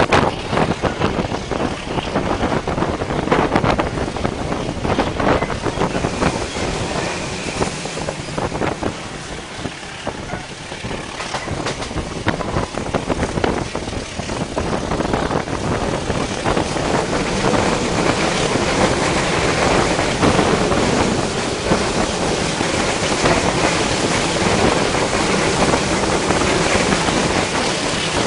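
Passenger train running at speed, heard from the open vestibule between carriages: a constant rumble with irregular knocks and rattles from the wheels and running gear, and wind buffeting the microphone. It eases off for a few seconds about a third of the way in, then builds back up.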